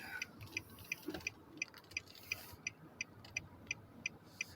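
Car turn-signal indicator clicking steadily, about three clicks a second, over low road noise inside the cabin.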